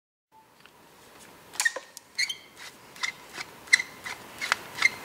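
Light metallic clicks, each with a short ring, as a 5 mm Allen key works the brake pad retaining pin loose in a motorcycle rear brake caliper. They start about a second and a half in, come irregularly at first, then settle to about two or three a second.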